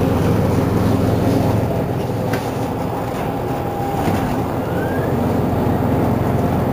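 Mercedes-Benz Citaro G C2 articulated bus standing with its engine idling, a steady low hum, with a single sharp click about two seconds in.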